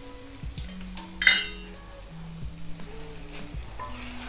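Soft background music with long held low notes, and about a second in, one sharp ringing clink of a utensil against the frying pan.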